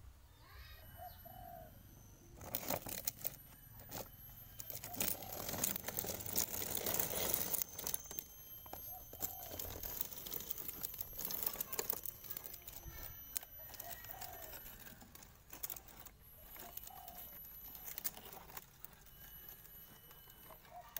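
Scraping and clicking of a plastic toy dump truck being pushed over concrete and a board, busiest in the first half. A dove coos several times in the background.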